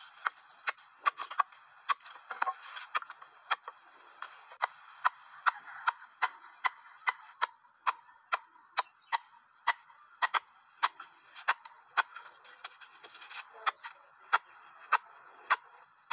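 Wooden stakes struck from above to drive them into the ground, as sharp, evenly spaced knocks about two a second.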